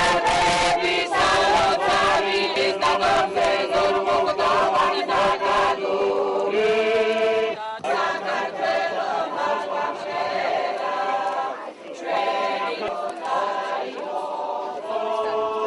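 A Georgian folk choir of men and women singing unaccompanied, several sustained voice parts at once, with short breaks between phrases.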